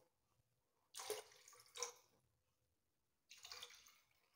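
Faint splashing of water poured from a steel bowl into a pressure cooker of moong dal and rice, in a few short pours.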